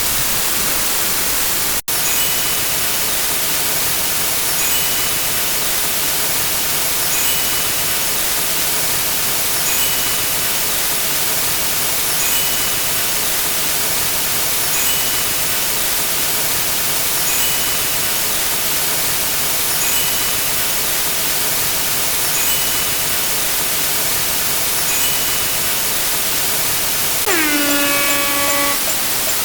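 Steady rushing noise, like a looped waves or static effect, with a faint short tone about every two and a half seconds. Near the end comes an air horn blast lasting under two seconds: its pitch drops as it starts, then holds.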